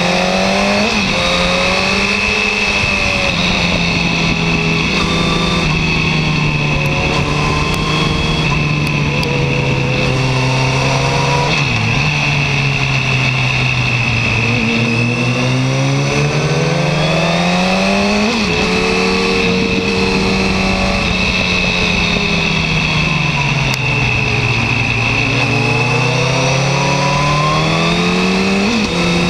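Yamaha R1 sport bike's inline-four engine heard from on board, its pitch falling and rising again in long swells as the rider rolls off and accelerates, with a few sudden jumps in pitch at gear changes, over steady wind rush.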